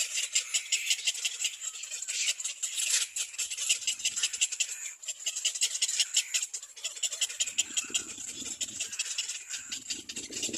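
Little black cormorant chicks calling, a rapid run of short, high-pitched notes repeated several times a second. A lower sound joins briefly about seven and a half seconds in.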